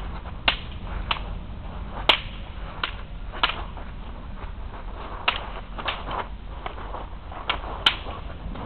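Wooden training weapons clacking against each other in sparring: about a dozen sharp knocks at irregular intervals, some in quick pairs, two louder cracks about two seconds in and near the end.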